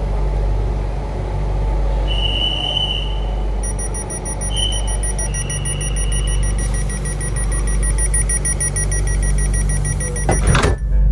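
Train door-closing warning: two high tones, then fast repeated beeping over the carriage's steady low hum, ending near the end as the sliding doors shut with a loud thump.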